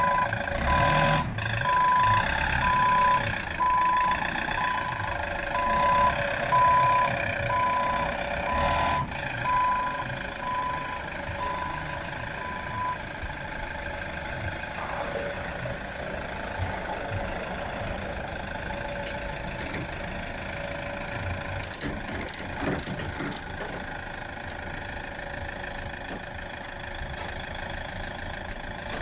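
Delivery truck's reversing alarm beeping about once a second over its running engine. The beeps stop about halfway through and the engine keeps idling; a high steady whine comes in near the end.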